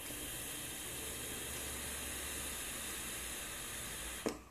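Long drag on a box-mod e-cigarette: a steady hiss of air drawn through the atomizer as the coil vaporizes the liquid, ending with a short click after about four seconds.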